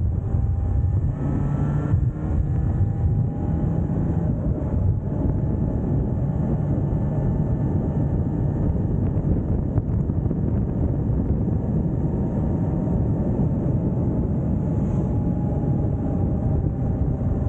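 Motorbike riding at a steady cruise, its engine running under a heavy rush of wind on the microphone; the engine's faint tones rise and fall a little with small throttle changes.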